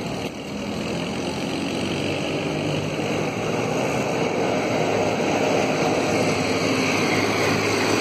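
A vehicle engine running steadily as a low, continuous rumble that grows gradually louder. No goat or sheep calls are heard.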